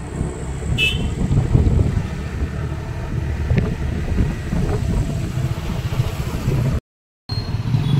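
A motor vehicle running, heard from on board while moving, with a steady low rumble of engine and wind on the microphone. A brief high beep-like tone comes about a second in, and the sound cuts out for a moment near the end.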